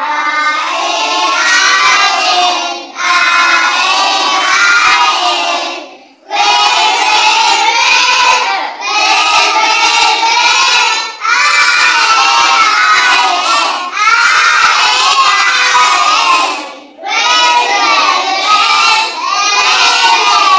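A class of kindergarten children singing together loudly in unison, in phrases of two to three seconds with short breaks between.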